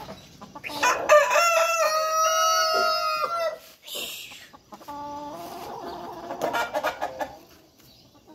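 Black Australorp rooster crowing once, a long call about a second in that lasts over two seconds, over the clucking of a crowded flock of Black Australorp chickens. A short call comes near the middle, and clucking carries on toward the end.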